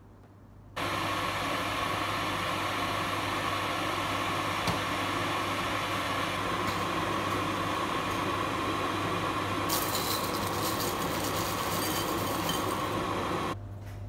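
Goodmans electric kettle heating water toward the boil: a steady rushing noise that turns hissier about ten seconds in and stops abruptly near the end.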